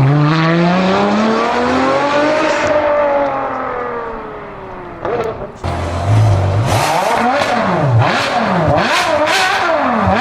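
Vehicle engine revving. The pitch climbs and then falls away over the first five seconds, then rises and falls quickly several times in a row.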